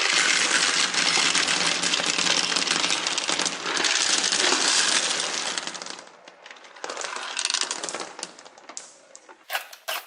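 Dense clattering of many small hard pieces rattling against each other for about six seconds, then thinning to scattered clicks and clatter.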